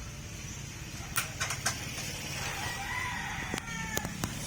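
A rooster crowing in the background about halfway through, a drawn-out call that rises then falls, with a few sharp clicks scattered around it.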